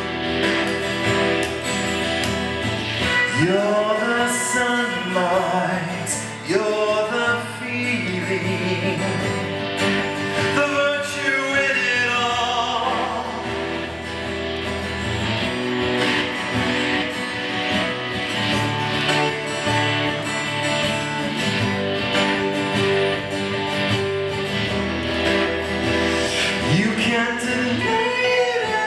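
Live acoustic rock song: acoustic guitar playing under a male lead vocal.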